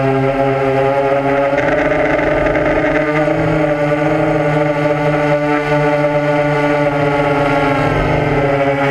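Multirotor drone's electric motors and propellers whirring steadily, heard through its onboard camera, the pitch shifting slightly about one and a half seconds in and again near the end as it manoeuvres.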